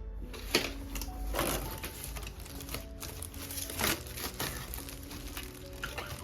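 Soft background music with a few short clicks and taps of small objects being handled.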